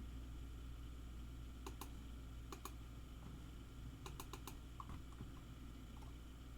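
Faint computer keyboard keystrokes: a few scattered clicks, two pairs and then a quick run of four, over a steady low room hum.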